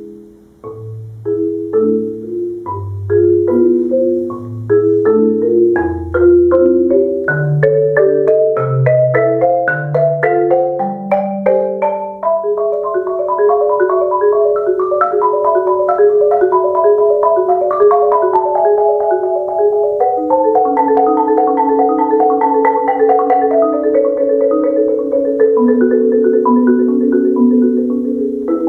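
Concert marimba played solo with mallets: rolled notes climbing up from the deep bass register and growing louder over the first dozen seconds, then a long stretch of rapid rolled chords in the middle register.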